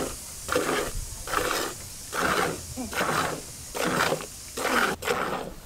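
A water buffalo being hand-milked into a steel pail: squirts of milk hiss into the pail in an even rhythm, a little more than one a second.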